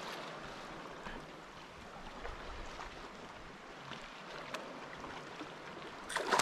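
Water splashing and lapping around a fishing kayak as a hooked bass thrashes at the surface beside it, with a louder splash near the end.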